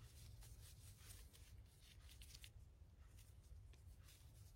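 Faint, irregular rubbing and scratching of a cloth wiping a bicycle hub's dust seal, over a low steady room hum.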